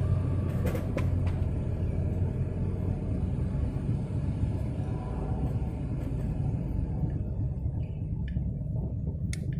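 Steady low outdoor rumble of road traffic around a railway level crossing, easing off near the end, with a few faint clicks. No crossing bell or alarm is heard.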